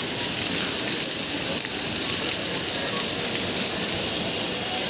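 Heavy rain falling and pattering on surfaces, a steady dense hiss.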